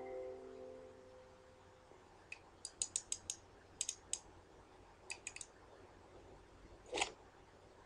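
Sharp mechanical clicks of an old bellows camera being worked, in small quick runs of three to five, then one louder click about seven seconds in. Music fades out at the start.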